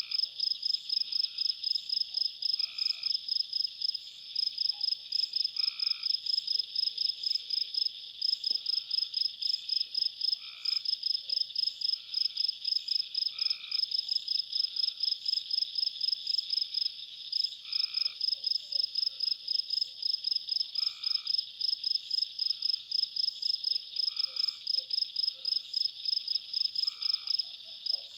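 Nighttime chorus of insects chirping steadily at a high pitch, about three pulses a second, with frogs giving short, lower croaking calls every second or two.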